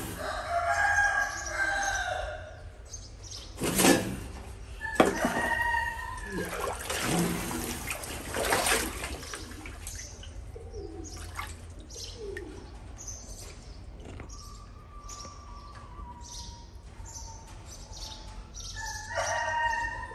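Rooster-like crowing calls, each about two seconds long, one at the start and another near the end, with a shorter call and a few sharp knocks in between.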